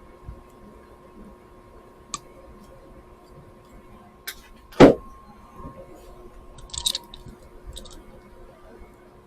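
Scattered clicks and taps of hands and small tools working on thermostat wiring at the terminals, with one louder knock about five seconds in and a quick run of clicks a couple of seconds later, over a steady faint hum.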